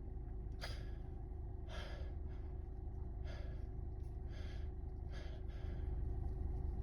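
A person's sharp inward gasps and sniffs, about one a second, during a sneezing fit as the next sneeze builds. A low steady hum sits underneath.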